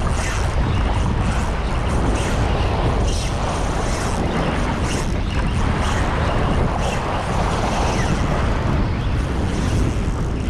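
Wind rumbling on the microphone over sea surf, a steady rushing noise with no clear rhythm.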